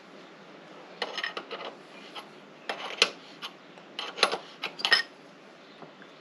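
A wrench clinking and clicking against an aluminum AN hose fitting as the fitting is tightened in a vise. The clinks come in three short, irregular runs: about a second in, around three seconds, and between four and five seconds.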